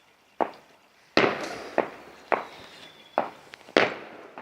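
A run of about six fireworks bangs at irregular spacing, the two loudest about a second in and near the end, each trailing off in echo.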